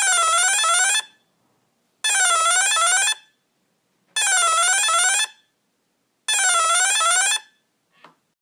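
Hitec Energy Sport brushless ESC sounding its programming tone: four electronic beep phrases, each about a second long and repeating roughly every two seconds, each dipping in pitch and then rising back. The pattern signals the "Acceleration: Hard" option in the ESC's programming mode.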